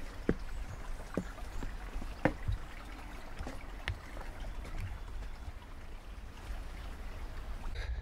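Footsteps knocking on a wooden boardwalk bridge, irregular steps about every half second, over the steady rush of a small stream.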